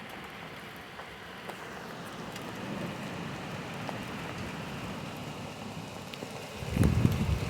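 Steady rain falling, with scattered drops ticking. About a second before the end, a loud, low thunder rumble breaks in from a nearby lightning strike.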